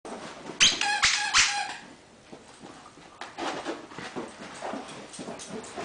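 Two greyhounds playing tug-of-war over a plush toy: a burst of high-pitched squeaks about a second in, then short, rough growls and scuffling as they pull.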